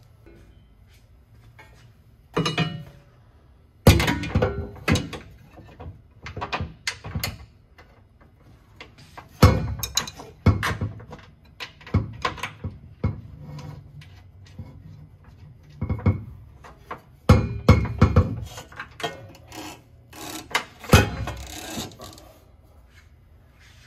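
Irregular metallic knocks, clanks and thunks of an aftermarket steel exhaust pipe being handled and worked into place under a diesel pickup, in clusters with short pauses between.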